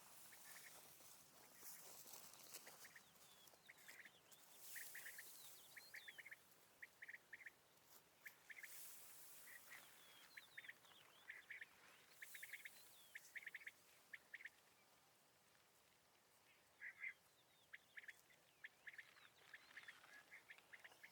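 Faint quail calls: quick groups of three to five short, clipped notes, repeated again and again with a brief lull in the middle.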